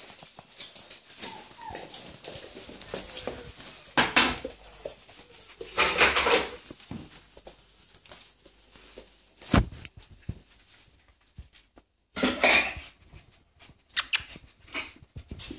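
German Shorthaired Pointer puppy sniffing and snuffling in irregular bursts, with a few knocks and scrabbling sounds.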